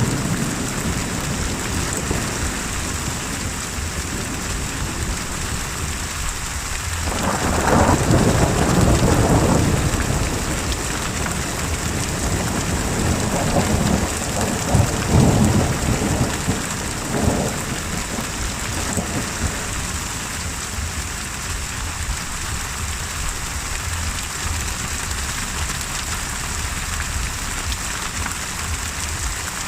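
Steady heavy rain in a thunderstorm with rolling thunder. Deep rumbles come about a quarter of the way in and again around the middle, then the rain carries on alone.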